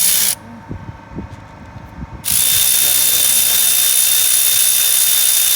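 A power tool running with a steady high whine over a loud hiss. It cuts off about a third of a second in and starts again just over two seconds in. In the gap, a few light metallic clinks and knocks are heard.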